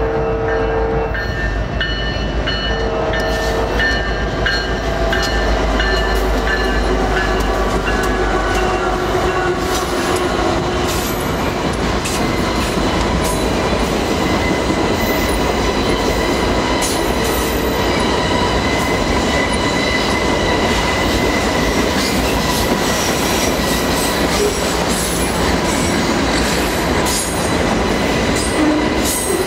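A freight train led by three Union Pacific diesel locomotives is passing close by. In the first several seconds there are the locomotives' deep engine rumble and stepped horn tones. After that, autorack cars roll past with a steady rush of wheels on rail, clickety-clack from the rail joints and a thin, high, steady wheel squeal.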